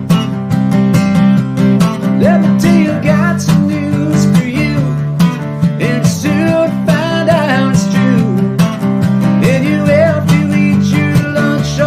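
Instrumental country-style guitar music: strummed acoustic guitar under a lead guitar line with bending notes.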